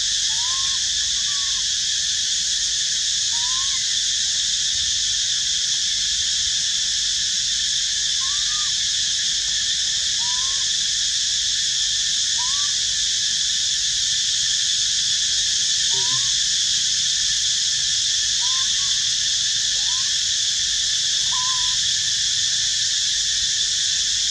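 Steady high drone of a forest insect chorus. Over it come short calls that rise and fall in pitch, repeated every second or two.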